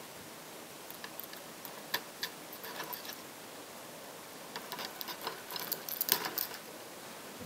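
Crisp fried ragi thattai crackling and clicking as they are picked up and handled on the plate, in two bursts of small dry clicks, the second around five to six seconds in and the louder.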